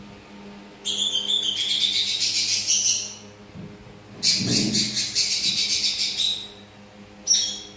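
A parrot chattering in two long runs of rapid, high-pitched chirps, each about two seconds, then a short sharp call near the end.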